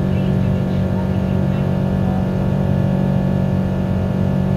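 Steady in-cabin noise of a Boeing 777-200 climbing after takeoff: the even drone of its Rolls-Royce Trent engines and the rushing air, with a constant low hum.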